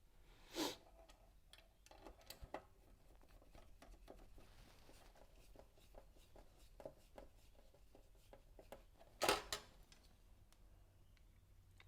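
Small turntable mechanism parts being handled and fitted by hand: scattered light clicks and knocks, with a sharper knock about half a second in and the loudest pair of knocks just after nine seconds.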